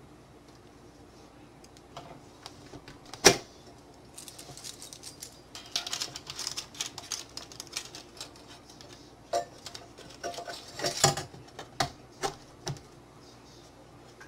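Handling noise: scattered clicks and light rattling, with a sharp knock about three seconds in, a dense run of small clicks in the middle and a cluster of knocks near the end.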